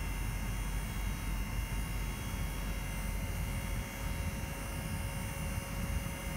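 Isuzu NPR dump truck running with its bed raised on a newly installed hydraulic dump hoist: a steady machine hum over a low rumble.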